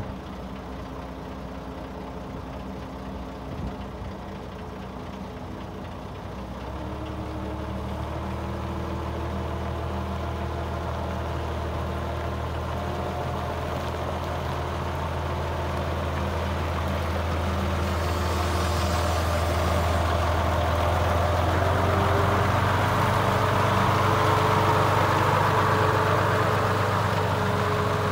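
Engine of an Atlet SM 8 heavy forklift truck, idling and then revving up about six seconds in as the machine drives off; the engine sound grows steadily louder and is loudest a few seconds before the end.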